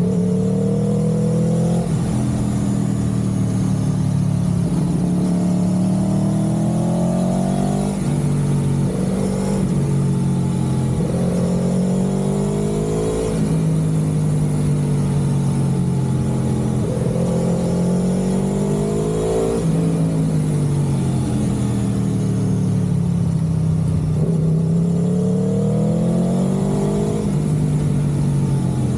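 A motor vehicle's engine running under way. Its pitch climbs for several seconds and then drops sharply, about five times over, as it speeds up and shifts or eases off.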